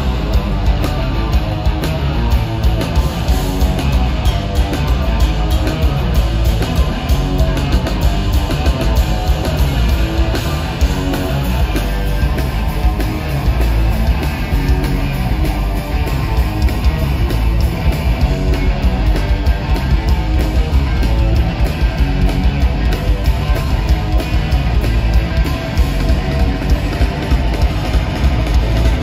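Live rock band playing loud, with distorted electric guitars, bass and drums, in an arena.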